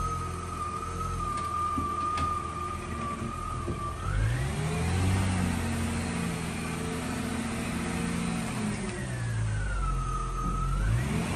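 Car engine running under way, its revs rising about four seconds in, holding, dropping back around nine seconds and climbing again near the end, with a whine that rises and falls along with the revs.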